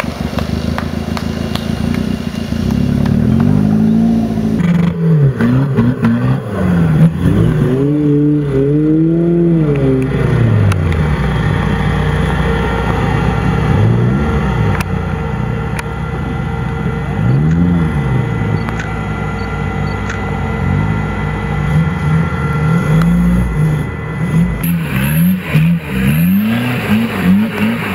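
Engines of modified off-road trial 4x4s revving up and down over and over as they are driven through deep mud, the pitch rising and falling with each burst of throttle.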